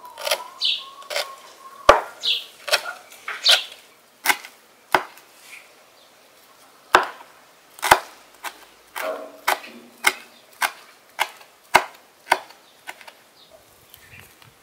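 Large kitchen knife chopping leafy purple herbs on a wooden cutting board: sharp, irregular knocks, about one or two a second with short pauses, stopping shortly before the end.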